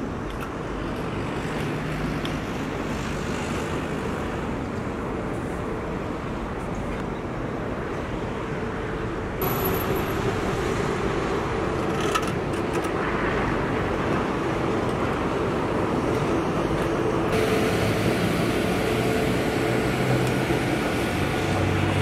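Steady road traffic and engine noise, with vehicle engines humming at steady pitches. The sound steps up abruptly about nine seconds in and shifts again near seventeen seconds.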